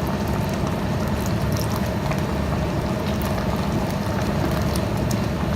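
Pot of lomi noodle soup boiling on the stove: a steady bubbling hiss with scattered small pops.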